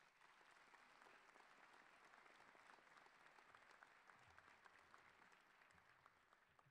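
Faint audience applause, many hands clapping together, fading out near the end.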